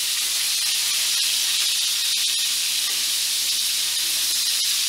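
Fish steaks frying in coconut oil in a shallow pan: a steady sizzle with scattered crackles. The frying is still noisy, which the cook takes as the sign that the fish is not yet cooked through and browned.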